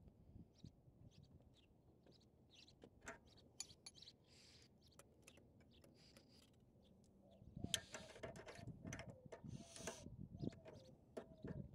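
Near silence with faint clicks and taps of wrenches on the engine's valve rocker arms and adjuster nuts while the valve lash is set. About halfway in, a bird calls: a string of short falling notes.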